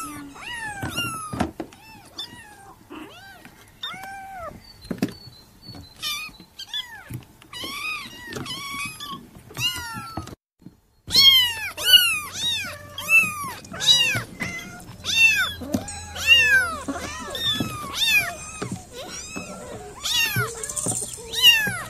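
Kittens mewing over and over, high-pitched calls that each rise and fall, one or two a second, with a few soft knocks among them. After a brief break about halfway the mews come louder and closer together.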